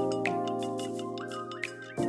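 Intro background music: sustained held chords over light, regular ticking percussion, fading down towards the end.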